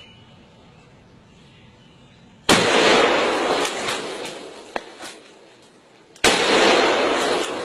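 Two revolver shots about four seconds apart, each a sharp bang followed by a long echo that fades over two to three seconds.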